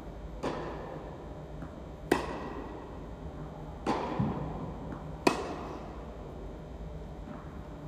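Tennis ball struck back and forth by rackets in a rally in an indoor tennis hall. Four sharp hits come about a second and a half apart, each echoing off the hall, with fainter knocks between them.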